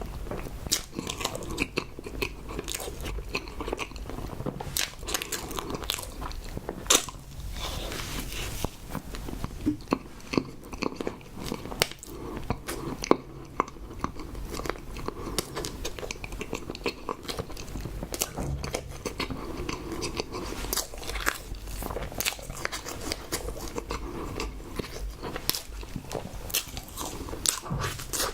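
A person chewing and biting food close to the microphone: a continuous run of irregular small clicks and smacks of eating.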